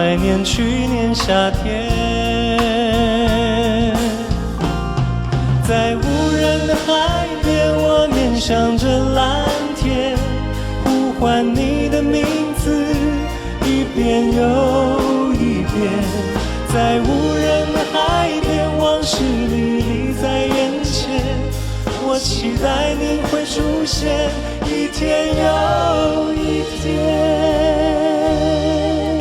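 A slow pop ballad: singing over band accompaniment, with long sustained notes.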